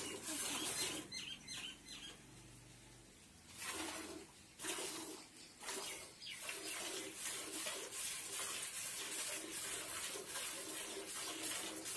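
Pigeons cooing over and over in a low, repeating rhythm.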